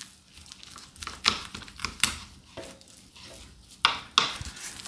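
Knife cutting through a pork spare rib on a plastic cutting board to sever the rib tip, with a few sharp clicks and knocks of the blade against the board over faint scraping.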